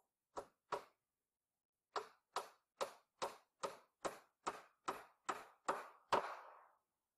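Hammer driving a nail into a wooden board: two strikes, a pause of about a second, then eleven steady blows at about two and a half a second, the last one the loudest and ringing longest.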